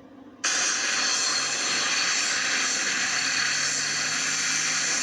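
A loud, steady hiss of noise that cuts in suddenly about half a second in and holds level.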